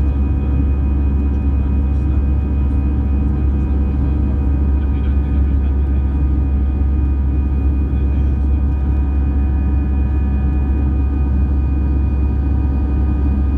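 Cabin noise of an Airbus A320 climbing out after takeoff, heard from a window seat beside the wing: its CFM56 jet engines at climb power make a steady, deep rumble with several steady humming tones on top.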